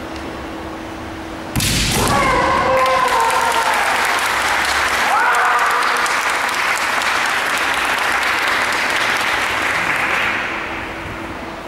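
A kendo shinai strike about a second and a half in, a sharp crack with the fighters' kiai shouts, then spectators clapping and cheering for several seconds, fading away near the end.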